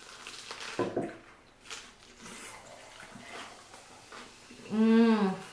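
Soda poured from a can into a tall insulated mug. Near the end comes a short hummed "mmm", rising then falling in pitch, which is the loudest sound.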